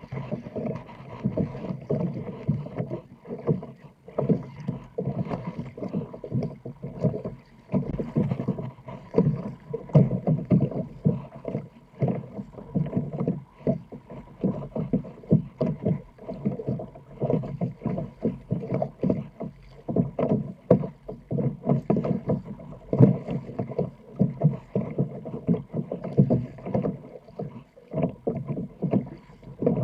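Water splashing and slapping around a sit-on-top kayak as it is paddled through choppy water, the paddle blades dipping on each stroke. The splashes come in an uneven, continual run.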